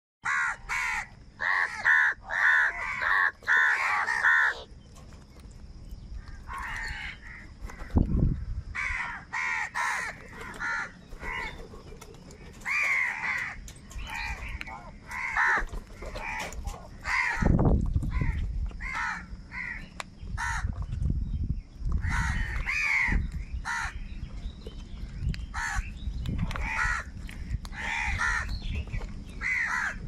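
A flock of house crows cawing harshly, many short calls overlapping in quick runs, as they squabble over food. A couple of low thumps sound partway through.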